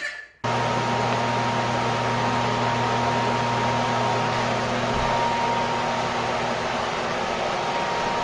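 Steady machine noise, like a running fan, with a constant whine. It starts abruptly about half a second in.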